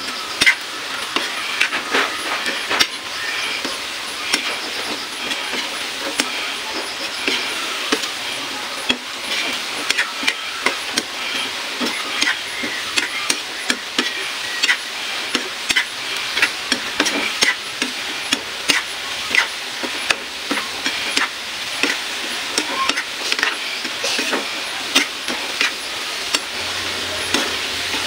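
Squid balls frying in hot oil in a wok: a steady sizzle, with frequent sharp clicks and scrapes as a spatula stirs them against the pan.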